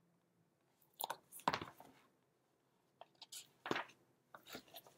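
A paperback-sized picture book being handled and its page turned: a few short papery rustles and taps.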